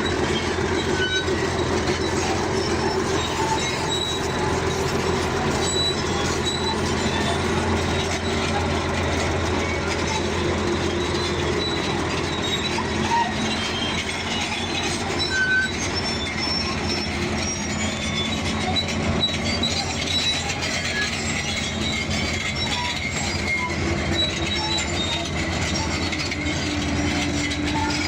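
Bulldozer working: its diesel engine runs at a steady drone while its steel crawler tracks squeak and clank throughout.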